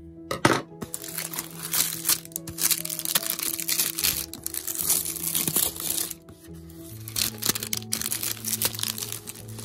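Clear plastic shrink wrap crinkling in irregular bursts as it is handled and pulled at on a cardboard box, over background music with held chords.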